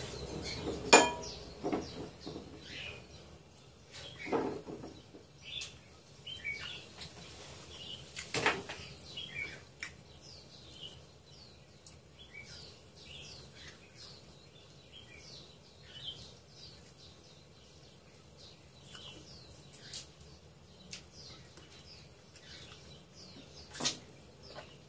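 Close mouth sounds of eating spicy chicken feet by hand: chewing and sucking on the feet, with a few sharp clicks, the loudest about a second in, another near eight and a half seconds and one near the end. A small bird chirps over and over in the background, in short falling chirps.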